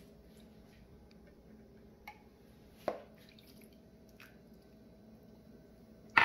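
Buttermilk poured in a thin stream from a measuring cup onto sauced chicken wings in a plastic bowl: faint drips and a few small wet splats, with one sharp knock at the very end.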